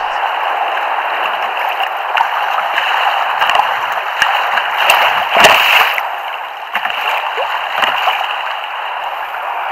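Choppy sea water splashing and gurgling against the bow of a fishing kayak as it moves through the waves. The rushing is steady, with a louder splash about halfway through.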